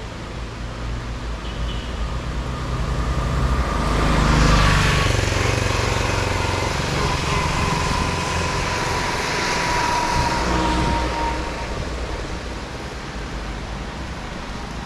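A motor vehicle passing on a wet road: its engine and the hiss of its tyres swell to their loudest about four to five seconds in, then fade slowly.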